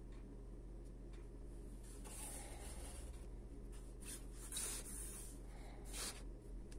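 Handling noise from a FIMI Palm pocket gimbal camera being turned over in the hands: a few short rubbing and scraping sounds of fingers on its plastic body, over a steady low hum.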